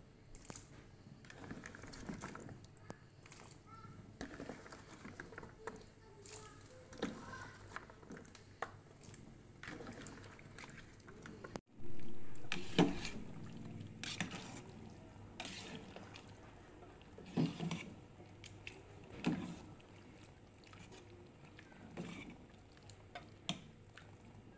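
Metal ladle stirring soup in an aluminium pot: liquid sloshing, with scattered knocks and clicks of the ladle against the pot. The loudest is a sudden knock about twelve seconds in.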